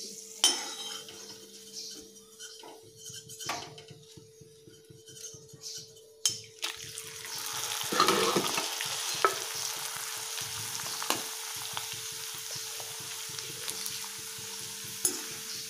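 Dried chips frying in hot oil in a steel kadhai. A few sharp clicks of a slotted spoon against the pan come first. From about six seconds in there is a steady sizzle that swells as more chips go in, with the spoon stirring them.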